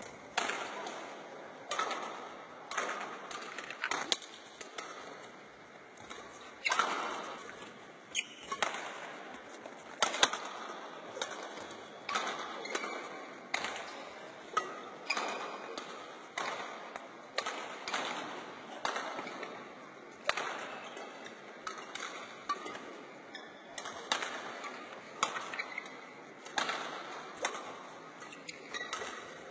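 Badminton rackets striking a feather shuttlecock in rallies: sharp hits about once a second, echoing through a large hall.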